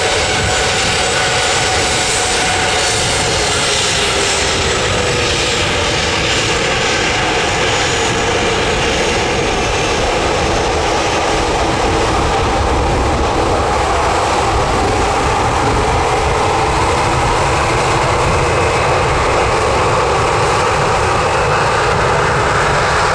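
Boeing 737-800's CFM56-7B jet engines at taxi power as the airliner rolls past, a loud steady jet whine and rush. Its tones drift slightly lower over the first few seconds.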